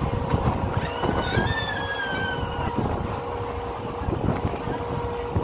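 Express passenger train running at speed, heard from the open doorway of a coach: a steady rumble of wheels on the track with irregular knocks. About a second in, a high tone sounds for about a second and a half, sinking slightly in pitch.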